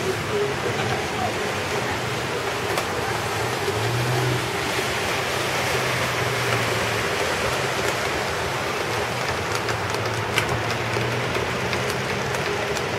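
Steady rush of heavy rain and running flood water, with a car engine humming underneath.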